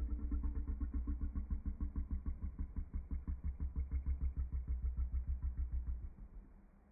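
A burp played back in slow motion: a deep, drawn-out rumble that pulses rapidly, several beats a second, and trails off about six seconds in.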